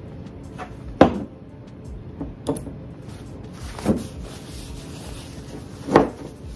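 A glass oil bottle handled on a countertop: four sharp knocks and clinks, the first and last loudest, as it is set down, wiped with a paper towel and its metal pour spout pressed in, with light rustling in between.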